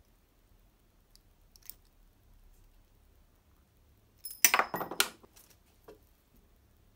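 Small metal parts and tools clinking together on a workbench: a short cluster of clinks about four seconds in, one ringing briefly, then a single small click.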